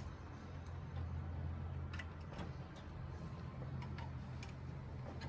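A few sharp, irregularly spaced light clicks, about six in five seconds, over a steady low hum.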